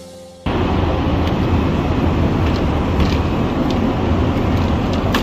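Steady, loud roar of a Boeing 777-300ER's cabin noise in flight, cutting in abruptly about half a second in as the background music stops. A few faint clicks sound over it.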